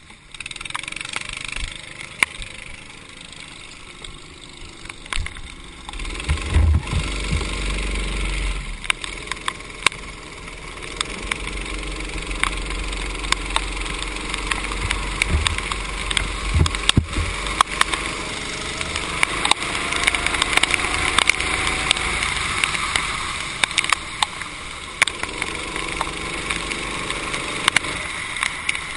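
Racing kart engine heard onboard, rising and falling in pitch with the throttle as the kart drives a wet track, quieter for the first few seconds and louder from about six seconds in. Over it, the hiss of water spray off the wet tarmac and scattered ticks of raindrops.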